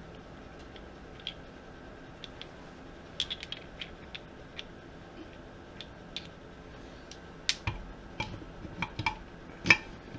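Metal-on-metal clicks and light knocks from 2005 Suzuki RM-Z250 transmission gears and shafts being handled and set into the aluminium crankcase half. A few faint clicks come first, then a quicker run of sharper clinks in the last few seconds.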